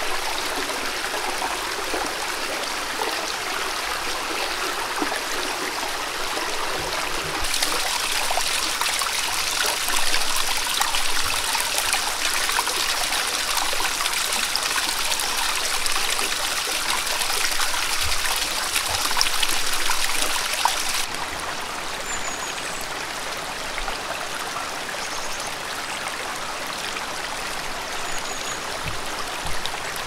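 Mountain stream trickling and splashing over small rock cascades into shallow pools: a steady rush of water. It turns brighter and a little louder about seven seconds in, then softer again about twenty seconds in.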